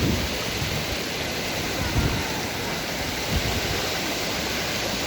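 Waterfall and stream water rushing steadily, with a couple of brief low thumps about two seconds in and near three and a half seconds.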